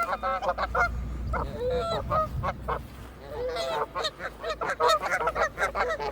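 Canada geese honking: many short, nasal calls in quick runs, thickest in the second half.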